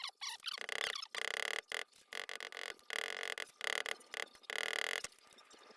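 Rasping abrasive strokes on metal, about two a second, each lasting about half a second, as a knife's pin head is rounded over by hand.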